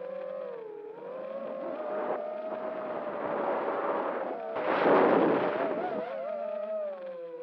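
FPV quadcopter's electric motors and propellers whining in flight, the pitch wavering up and down with the throttle. About five seconds in, a louder rush of air and prop noise swells for about a second, then the whine settles again.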